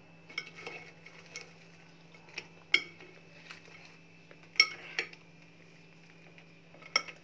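A spoon clinking against a glass mixing bowl while stirring broken biscuits into chocolate sauce. The sharp clinks come at irregular moments, the loudest nearly three seconds in and about four and a half seconds in.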